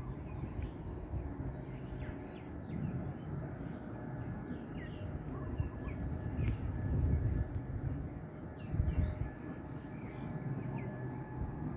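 Birds chirping, many short calls scattered throughout, over a steady low rumble of wind buffeting the microphone.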